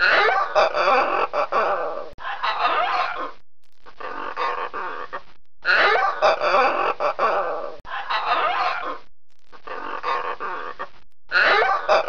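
Red macaws squawking: harsh, loud, rasping calls in stretches of a few seconds, broken by short silent gaps.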